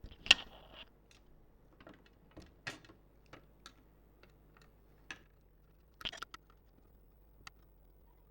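Scattered small clicks and taps of tools and parts being handled inside an opened laptop while its CPU cooler is worked on, the sharpest click about a third of a second in followed by a short scrape, then irregular lighter ticks.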